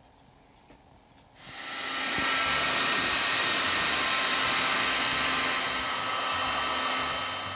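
HotShot heat gun's blower running steadily, blowing hot air onto heat-shrink tubing over an alligator clip's wire. It comes on about a second and a half in with a rush of air and a faint steady hum, and dies away at the end.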